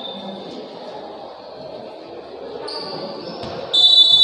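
Background murmur of a gym hall, then about three and a half seconds in a loud, steady referee's whistle blast lasting over a second.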